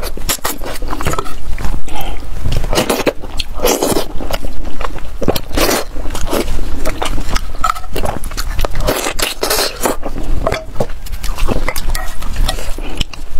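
Close-miked chewing and biting of braised pork: a loud, irregular run of wet smacks, squelches and clicks from the mouth.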